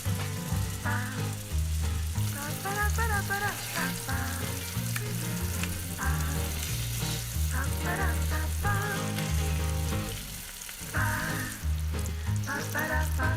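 Food sizzling in a frying pan, a steady hiss, under background music with a changing bass line and a wavering melody.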